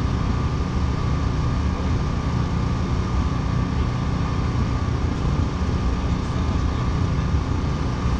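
Car engine running steadily with a low, even rumble and a faint steady whine above it.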